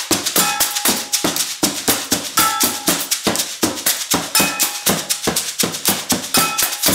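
Small found-object percussion ensemble playing a steady groove: hand drum, tambourine, sticks and shakers in a dense, even pattern of quick hits. A short pitched note recurs about every two seconds.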